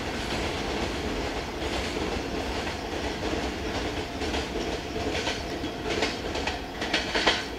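Wheels of a freight train's last container wagons clattering over the rail joints as the tail of the train rolls away, the sound slowly fading, with a sharper clack near the end.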